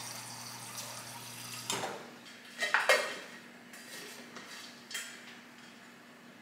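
Refrigerator door dispenser humming as it fills a tumbler, stopping with a click about two seconds in. A few sharp clinks follow against the cup, the loudest a pair about a second later.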